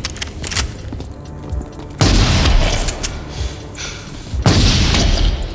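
Two heavy shotgun blasts, about two and a half seconds apart, each ringing off down a hard corridor, over the film score.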